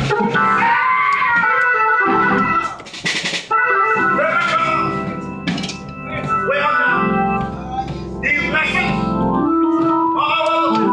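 Organ playing gospel chords in short held phrases with brief dips between them, and a short sharp crash about three seconds in.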